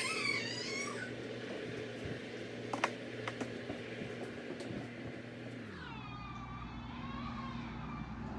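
A young child's high-pitched, wavering fussy squeal near the start, and another drawn-out whine about six seconds in, over a steady low hum.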